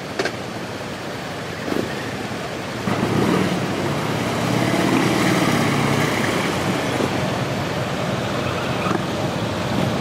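Harley-Davidson V-twin engine running as the touring trike pulls away, getting louder about three seconds in, over a steady hiss of street and wind noise.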